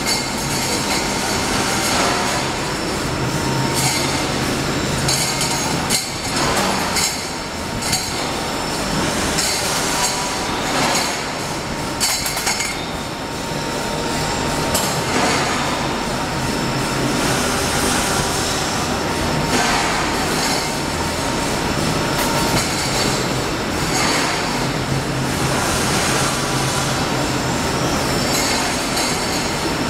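CNC circular cold saw cutting steel pipe: continuous loud metallic sawing noise with scattered sharp clinks.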